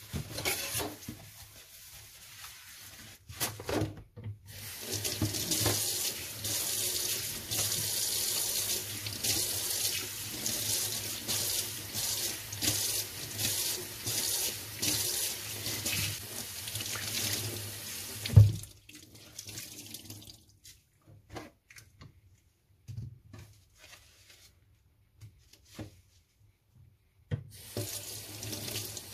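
Kitchen tap running into a stainless-steel sink while it is rinsed and wiped down with a sponge. There is a single loud thump about two-thirds through. The water sound then drops out for several seconds, leaving only a few light knocks, and comes back on near the end.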